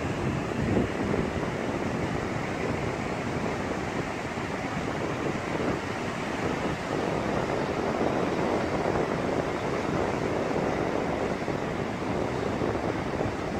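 Steady wash of surf breaking on the beach, with wind rumbling on the microphone.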